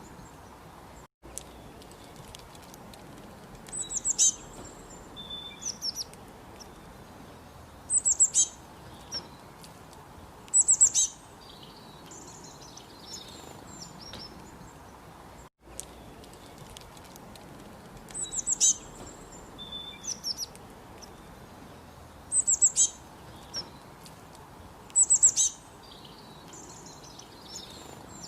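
Small bird chirping: short bursts of several quick, high notes every few seconds over a steady background hiss.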